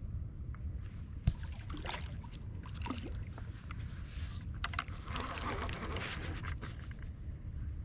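Steady low rumble of wind on the microphone by open water, broken by one sharp click about a second in and a stretch of crackling noise around the middle, with the handling of a baitcasting reel.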